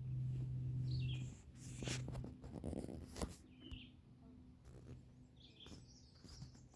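Wild birds chirping in short calls, several times. A low steady hum is loudest in the first second or so, and there are a few sharp knocks in the middle.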